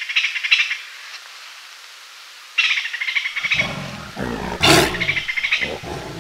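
Jungle-style animal sounds: short bursts of rapid high chirping come every couple of seconds, and a big cat's roar begins about three and a half seconds in and is loudest near the middle of its run.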